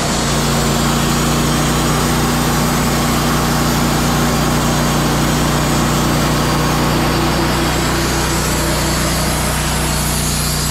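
Portable band sawmill running at a steady speed: an engine hum with a constant hiss above it.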